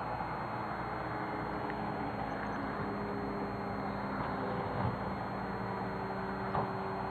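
A motor running steadily, its low hum holding a steady pitch and growing clearer a few seconds in, over a continuous outdoor hiss.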